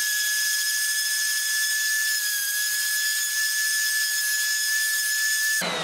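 DeWalt random orbital sander running on an MDF panel: a steady high-pitched whine over a hiss. It is switched off near the end and starts winding down in falling pitch.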